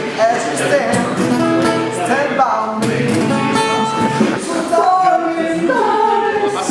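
Live singing to acoustic guitar accompaniment, the voice holding long notes with vibrato.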